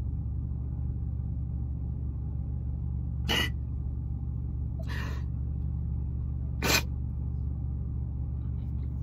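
A woman crying: three sharp sniffling sobs, a second or two apart, over the steady low hum of the idling car.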